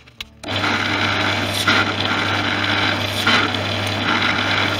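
Bench drill press switching on about half a second in, its motor then running steadily while the bit cuts a hole in a metal hinge. A harsher cutting noise swells about every second and a half as the bit is fed in.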